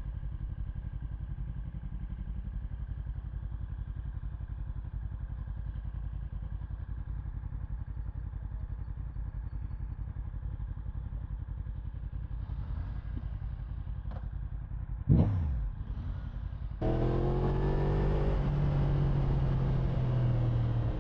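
Yamaha R1's crossplane inline-four engine idling with an even low pulse. About fifteen seconds in there is a brief sharp blip. Near the end the engine gets louder and its note climbs steadily as the bike pulls away.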